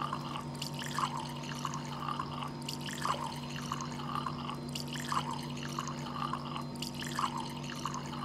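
A thin stream of water running from a hose into a plastic bottle, trickling and splashing as the bottle fills. A steady low hum sits underneath.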